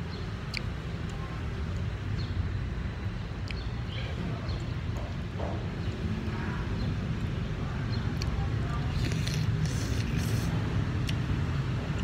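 Steady road-traffic rumble from a street, growing a little louder in the second half, with a brief passing hiss about nine seconds in. Light clicks of chopsticks and a metal spoon against a ceramic soup bowl come now and then.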